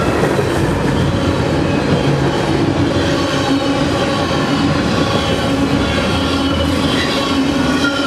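Freight train rolling past, its wheels running steadily on the rails with a held metallic squeal of wheels on rail over the rumble.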